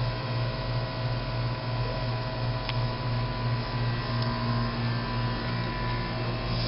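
York central air conditioner's outdoor condensing unit running loud and steady: a low compressor hum with a few fixed higher tones under the fan's even rush.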